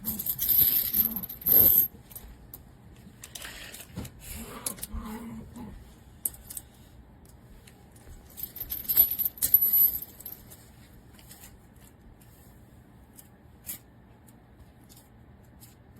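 Stainless steel chain links and carabiners clinking and jangling as they are handled, in two busy bursts: one at the start and one about nine seconds in, with a few single clicks after.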